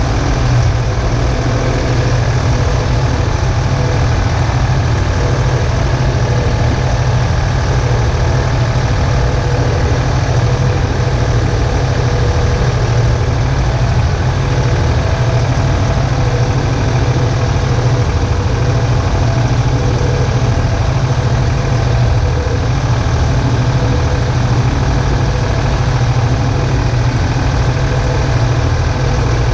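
Steyr 964 Turbo tractor's diesel engine running steadily under load while it pulls and drives a JF-Stoll twin-rotor hay rake.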